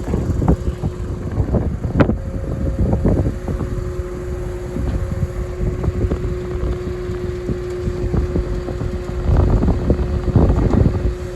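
Heavy farm machinery engine running steadily, with a constant droning tone, under strong wind buffeting on the microphone that grows louder near the end.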